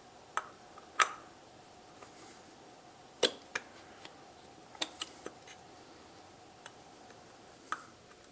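Scattered light clicks and taps, about eight over several seconds, as the rear cover of a Honda CBR1000F starter motor is turned back and forth against its housing to seat its locating tab. A faint steady hum runs underneath.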